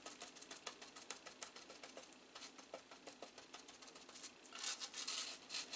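Faint, quick irregular tapping and rustling from a brush dabbing a Kimwipe laid over a circuit board, soaking up alcohol and dissolved flux. A short, louder rustle comes near the end.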